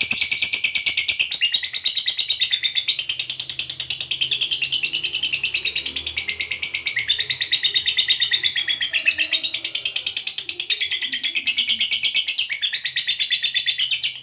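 Fischer's lovebird giving a long ngekek: a loud, rapid, high chattering trill that wavers up and down in pitch. It keeps going almost without a break, with a few short pauses in the second half.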